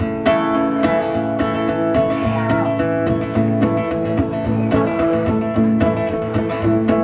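Acoustic guitars strumming the instrumental intro of a folk-country song, with a steady beat of about two strums a second.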